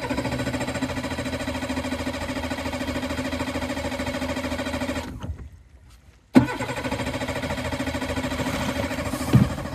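60 hp Johnson four-stroke outboard motor starting abruptly and running steadily for about five seconds, then dying out. About a second later it starts again and runs on, with a short knock near the end. The motor is stalling, which the owner traced to two-year-old fuel, a plugged fuel hose and a gummed-up filter.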